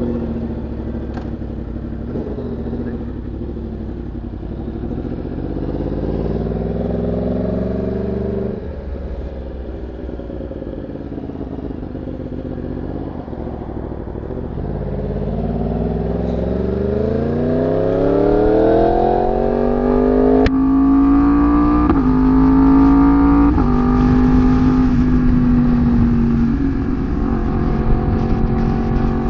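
Sportbike engine pulling hard under acceleration, its pitch climbing and then dropping sharply at a gear change about eight seconds in. It climbs again, steps down through three quick upshifts in a row, then holds a steady pitch while cruising.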